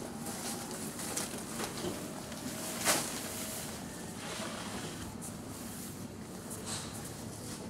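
Supermarket aisle ambience: a steady hum with scattered light rustles and clicks, and one sharper click about three seconds in.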